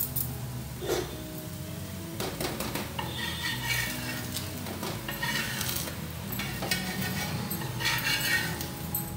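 Steel spatula scraping and clinking against an iron tawa as it is worked under a tapioca adai to loosen it. The scraping comes in bursts, loudest about three to four seconds in and again near the end.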